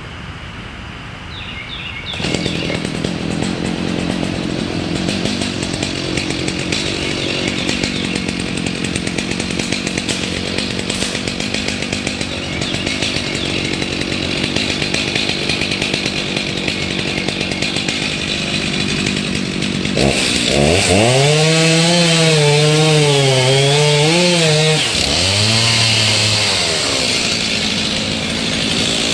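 Stihl MS 290 Farm Boss chainsaw running and cutting wood, coming in louder about two seconds in. About twenty seconds in its engine note rises and swells, wavering up and down under load for several seconds, then drops and rises once more briefly.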